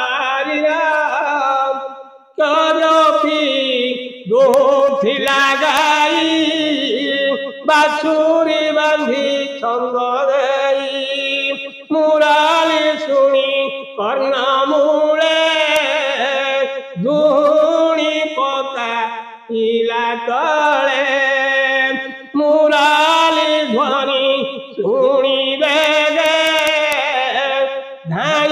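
A solo voice chanting verses of the Odia Bhagabata in a melodic recitation, short sung phrases one after another with a brief breath between each.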